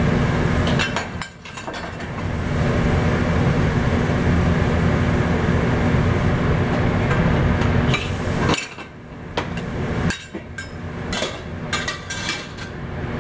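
Gas wok burner running on high heat under an empty wok, a steady rushing noise heating the pan, which drops away about two-thirds through. A few light metal clinks of kitchen utensils follow near the end.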